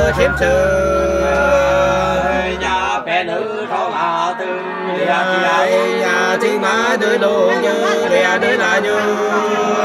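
Two men singing sli, the Nùng folk love song, unaccompanied in two voices, with long held, wavering notes. A low steady hum under the voices stops about three seconds in.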